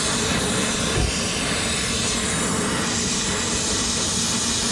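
Brazing torch with a micro rosebud tip burning with a steady hiss, its flame heating a copper discharge-line braze joint to melt it apart.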